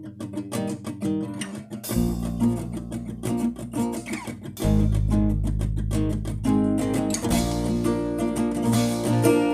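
Song intro on guitar: quickly picked notes, joined about two seconds in by bass and a fuller band sound that gets heavier again near the middle.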